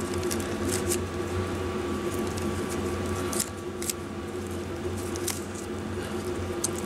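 Old electrical tape, gone gooey with age, being peeled and unwound off motorcycle ignition wiring: irregular sticky tearing crackles over a steady background hum.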